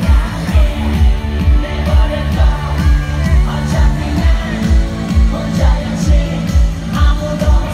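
Loud K-pop concert music over the arena sound system, with singing over a steady kick-drum beat of a little over two beats a second.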